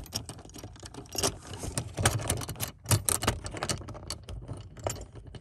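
Rapid small clicks and rattles of a cargo hook and its bolt being handled and pushed into the mounting hole in a car's plastic cargo-area trim panel, with a few sharper knocks about two and three seconds in.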